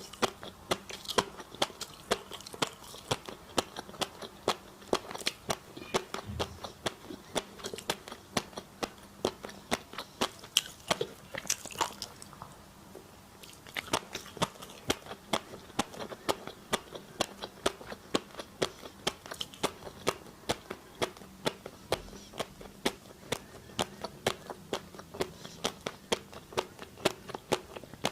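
Close-miked eating: crunchy food being bitten and chewed in quick, sharp crunches a few times a second, with a short pause about twelve seconds in.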